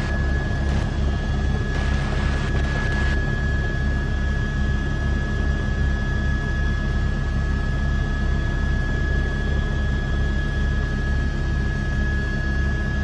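News helicopter's engine and rotor noise heard from inside the cabin: a low, pulsing rotor beat under a steady hiss, with a thin, steady high whine. About two seconds in, a brief burst of extra hiss comes and goes.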